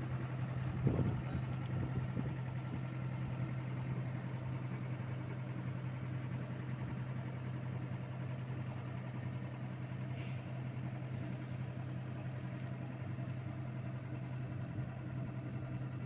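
Engine of heavy road-paving equipment running steadily, a constant low hum, with a brief knock about a second in.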